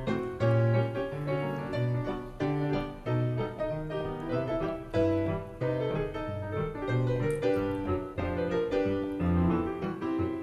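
Solo piano music: a lively accompaniment with a moving melody over bass notes, in the manner of a silent-film score.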